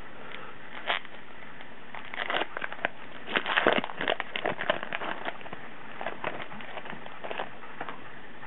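Crinkling and tearing of a baseball card pack's plastic wrapper as it is pulled open, a quick run of crackles in the middle that thins out toward the end.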